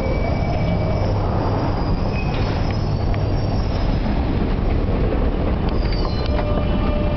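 London Underground train running with a steady heavy rumble and rail noise. About six seconds in, a steady whine of several tones joins in.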